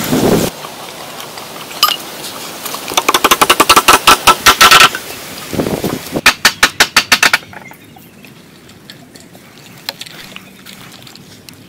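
Wooden sticks and ladder rungs knocking and clattering together in two quick runs of sharp strikes, about six a second, each lasting a second or two, then only faint light taps.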